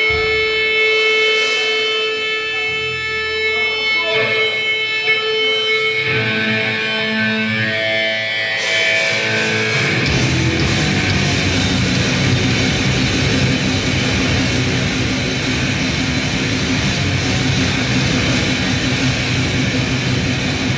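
Live grindcore band: held, ringing electric guitar tones, then about ten seconds in the full band comes in with distorted guitars and drums, loud and dense.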